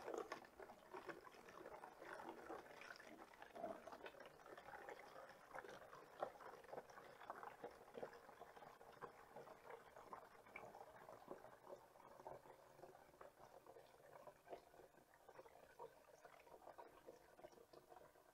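Faint sound of water being poured from a plastic tub through a funnel into a plastic jug, trickling and splashing, thinning out in the second half.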